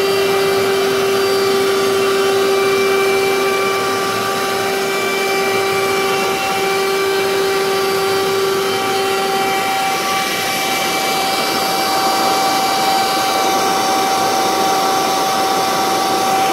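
Bosch BKS4043 cordless handheld wet-and-dry vacuum cleaner running steadily, its nozzle working over a hard stone countertop: a motor whine over a steady rush of air. The lower tone of the whine drops away about ten seconds in, leaving a higher whine.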